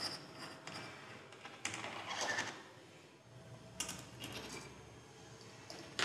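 Metal parts of a transaxle's driven pulley being handled: short scrapes and light clinks of the steel unscrewing tool, pin and nut against the pulley's metal flange as the flange is worked loose and lifted off its shaft, in several separate bursts.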